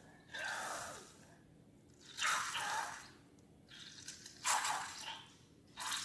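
Liquid slime ingredients pouring and splashing into a container in about four short bursts with brief pauses between them.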